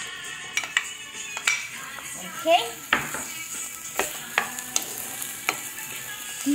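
Diced pancetta sizzling in hot olive oil in a non-stick frying pan, as it is crisped. A wooden spoon clacks and scrapes against the pan a number of times as the pieces are tipped in and stirred.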